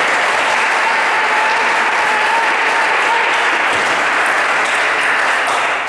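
Steady, loud applause from a crowd of spectators, starting suddenly and dying away near the end.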